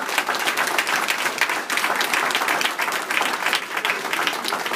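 Audience applause: a roomful of people clapping steadily.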